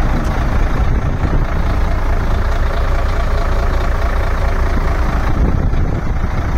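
Mercedes-Benz Actros 2544's V6 diesel engine idling with a steady low rumble.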